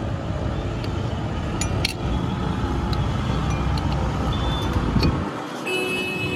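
Scattered clinks of a metal spoon against a glass jar and glasses over a steady rumble of street traffic. The traffic rumble drops away briefly near the end.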